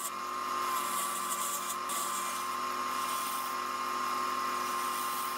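Wood lathe running with a mesquite vase blank spinning: a steady high whine over a hiss, as a turning tool shaves down the vase's neck.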